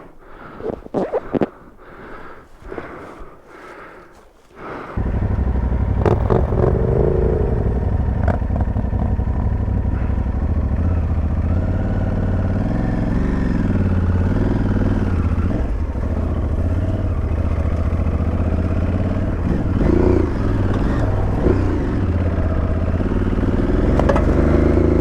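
A few scattered scrapes and knocks, then about five seconds in a motorcycle engine starts up abruptly and runs at a steady idle with slight wavers in pitch.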